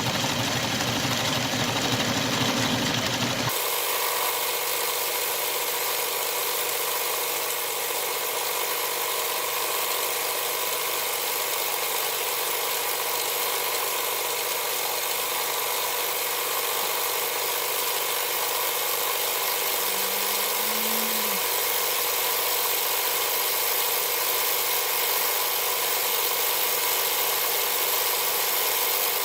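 Atlas metal lathe running steadily with an end mill in its milling attachment, milling the face of a steel vise. The sound changes abruptly about three and a half seconds in, then holds as an even machine hum.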